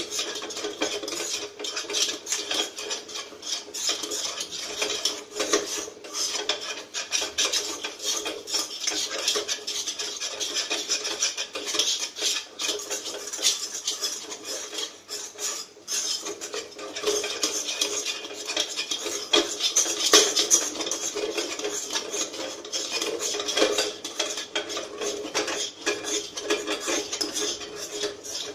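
Cooking utensil stirring and scraping thick, cooked-down milk solids around a kadhai, a continuous rapid scraping with clinks against the pan. The milk has been reduced until its ghee separates out.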